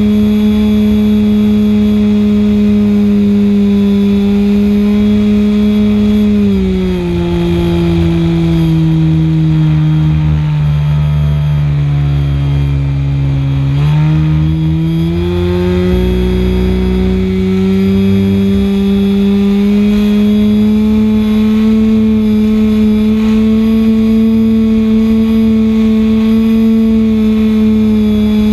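SuperTigre G-51 two-stroke glow engine of an RC model plane, heard from on board, running at high rpm with a steady buzzing note. About six seconds in it throttles back to a lower pitch, and from about fourteen seconds it climbs back up to full throttle. Low wind rumble on the camera microphone underneath.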